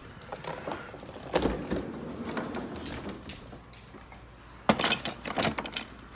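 A pull-out freezer drawer is opened with a knock and a slide, then frozen packages and containers clatter and rattle as a plastic tub is pushed in among them, loudest in the last second or two.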